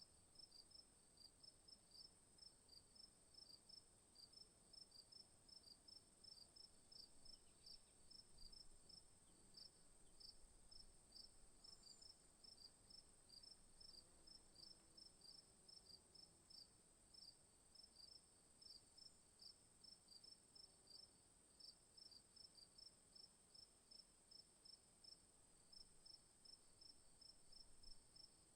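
Faint chorus of crickets: one steady, high-pitched trill runs unbroken beneath regular chirping at about three chirps a second.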